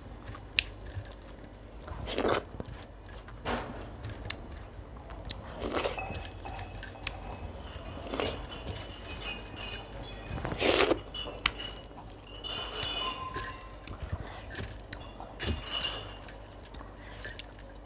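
Close-up eating sounds: chewing and slurping, with scattered clinks of dishes and utensils and several louder wet slurps.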